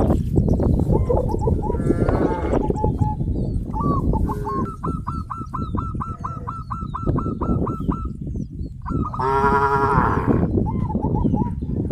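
Cattle mooing over a steady low rumble. In the middle comes a quick run of short high calls, about four a second, and near the end a long, loud call.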